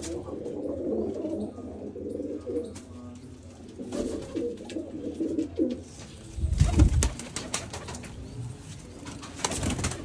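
Domestic pigeons cooing, several low wavering coos overlapping. About six and a half seconds in comes a loud low thump with rustling, followed by a few sharp clicks.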